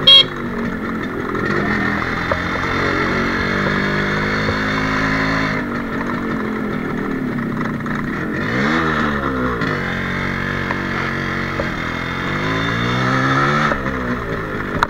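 Yamaha RXZ's two-stroke single-cylinder engine under way, the revs dipping and climbing again about halfway through and climbing then dropping sharply near the end as the gears change. A brief sharp sound right at the start is the loudest moment.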